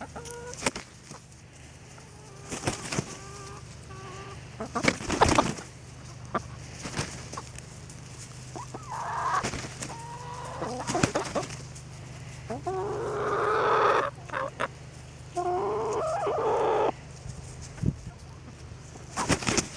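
Backyard hens clucking and squawking as they scramble and jump for bread. Short calls come early, sharp knocks about five seconds in, and three longer, louder squawks in the second half.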